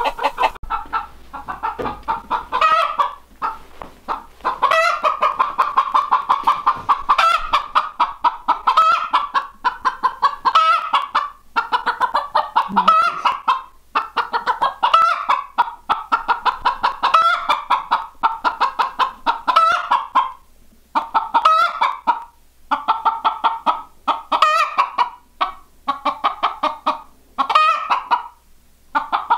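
Broody Icelandic hen clucking loudly, rapidly and without let-up, in runs of a second or two with short breaks. It is the fussing of a sitting hen that takes the keeper, close to her nest, for a threat to her eggs.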